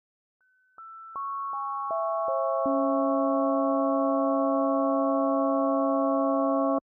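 A bell's overtone spectrum rebuilt from pure sine tones. Seven steady tones enter one after another, each lower than the last, from a high tone near 1.5 kHz down to the loudest and lowest near 280 Hz, within about two and a half seconds. They then hold together as one unchanging chord and stop all at once near the end.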